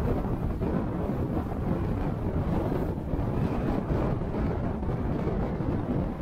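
Steady low rumble of a car on the move: road, engine and wind noise with no distinct events.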